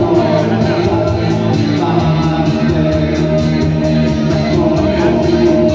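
Rock band music playing at full level: held chords over a steady cymbal beat.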